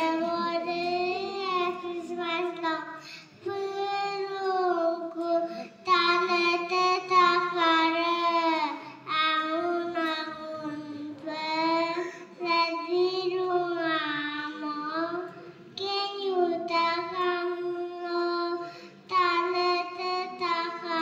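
Two young girls singing together into microphones, in sung phrases of a few seconds each with short breaths between.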